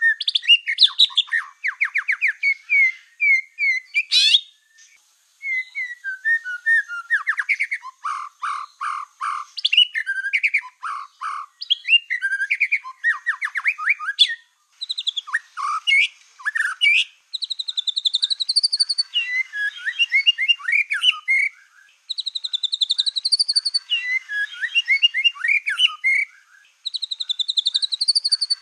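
Black-tailed white-rumped shama singing nonstop: a fast, varied run of whistles, trills and chattering notes, with a short break about five seconds in. In the second half the same rising-and-falling whistled phrase comes back three times among the other notes.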